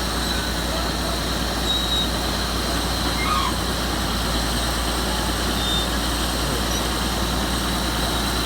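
Komatsu D375A crawler bulldozer working, its six-cylinder diesel running loud and steady along with the noise of its steel tracks.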